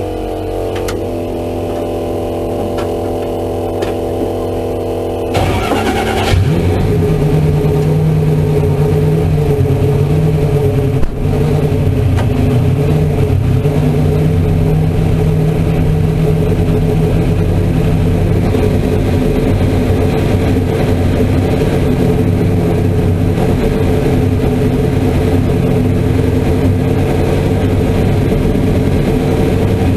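Turbocharged race car engine running steadily, then about five seconds in launching hard and holding a loud, sustained full-throttle run, with a brief dip in sound about eleven seconds in.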